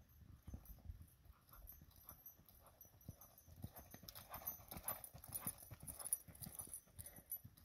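Horse's hoofbeats on sand arena footing, a run of soft, quiet thuds that grow louder as the horse comes close, loudest about four to six seconds in.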